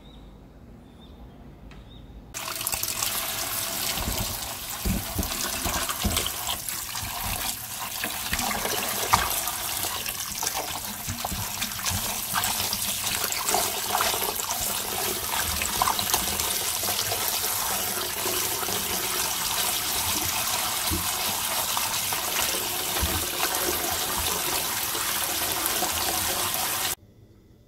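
Tap water running hard into a stainless steel bowl as a hand swishes lettuce leaves through it, splashing and sloshing. The water sound starts suddenly about two seconds in and cuts off suddenly near the end.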